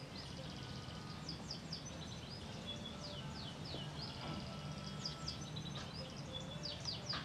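Small birds chirping in short bursts of quick falling notes and brief whistles, four or five times, over a steady low hum of ambient outdoor noise.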